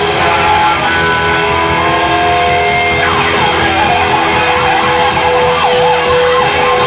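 Live hard rock band playing: a distorted electric guitar holds long lead notes over drums and bass, bending and sliding its notes about halfway through.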